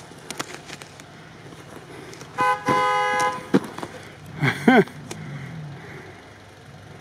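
A car horn sounds once, a steady toot lasting about a second. A short call that rises and falls in pitch follows a second or so later.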